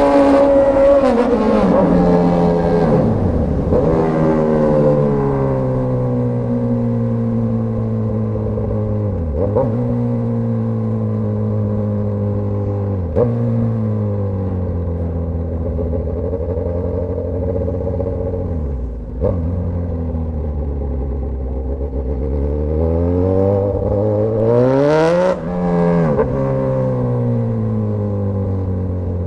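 Straight-piped Suzuki GSX-S1000 inline-four exhaust under way: revs falling at first, then holding steady at cruising speed, with a hard rev-up near the end that drops off sharply. A few short sharp cracks break into the exhaust note along the way.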